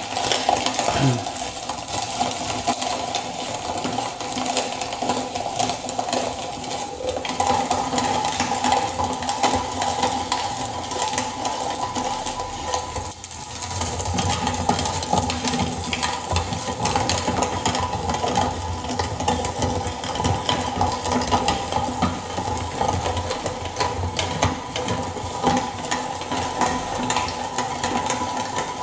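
Hand-cranked plastic meat grinder being turned steadily, its auger crushing dried red chillies into flakes, a continuous rattling grind of many small cracks and clicks. It pauses briefly about halfway through.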